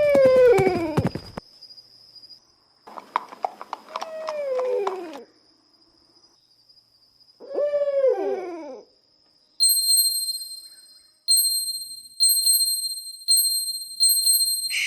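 Owl hooting sound effect: three drawn-out hoots, each sliding down in pitch, a few seconds apart. Then a bright bell chimes over and over, about once a second.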